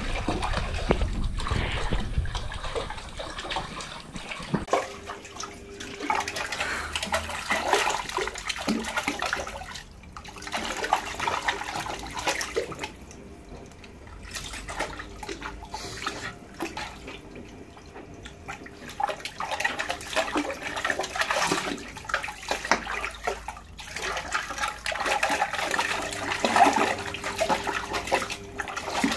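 A pug splashing in a shallow folding dog pool, pawing and nosing after a ball. The water splashes and sloshes in uneven bursts, with short quieter lulls.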